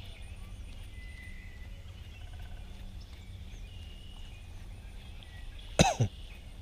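Open-air ambience with a steady low wind rumble and faint bird chirps, broken near the end by a sudden loud double call-like sound that falls in pitch.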